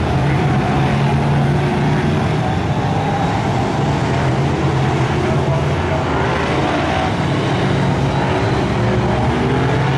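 Several BriSCA F1 stock cars' V8 engines running hard together as the cars race round the oval, a steady loud drone that rises and falls slightly as they go through the bends.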